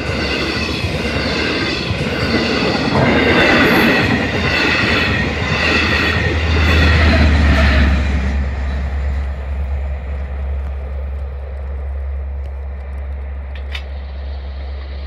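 Long Island Rail Road passenger train of bi-level coaches passing close by, its wheels clattering and rumbling on the rails. For about the first eight seconds a high ringing pulses over the rumble; once the locomotive has passed, the ringing stops and the rumble fades as the train moves away.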